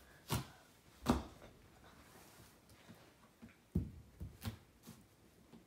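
Packing tape on a cardboard box being cut through: a handful of short, sharp scratches and clicks at irregular intervals, the loudest about a second in.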